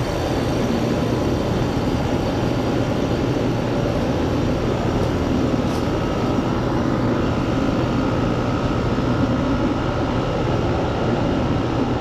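2003 Ruud Achiever UAKA central air-conditioner condensing unit running steadily: a low compressor hum under the steady rush of the condenser fan.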